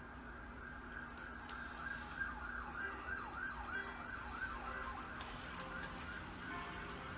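A faint siren warbling, its pitch sweeping quickly up and down over and over, above a steady low hum. Near the end a tinkling tune with ticking begins.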